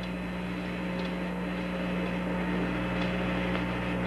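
Steady electrical hum and hiss of the Apollo 11 air-to-ground radio loop with no one talking, with a few faint ticks.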